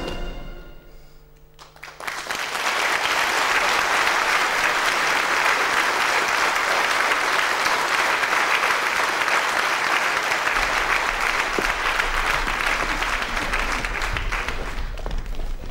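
A theatre audience applauding. The clapping swells in about two seconds in, as the orchestra's last notes die away, stays steady, and thins out near the end.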